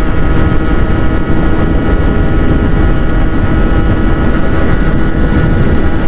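Wind buffeting the microphone of a moving motorcycle, with the steady high-revving note of a 50cc two-stroke engine held at speed underneath.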